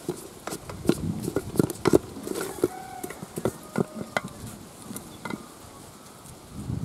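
Long wooden spoon stirring a thick mixture in an aluminium pot, knocking and scraping against the pot's side. The knocks come thickest in the first two seconds, then thin out to a few scattered ones.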